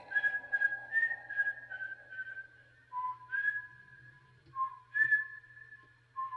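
Whistling: a short phrase of clear, steady notes, first a run of higher notes, then from about three seconds in lower held notes alternating with higher ones, over a faint low hum.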